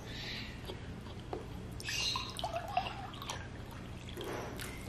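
Water poured from a plastic pitcher into a drinking glass, starting about two seconds in and running on to near the end.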